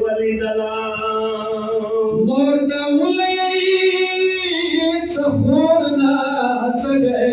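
A man singing a Pashto noha, a mourning lament for Imam Hussain, unaccompanied and amplified through a microphone, drawing out long held notes.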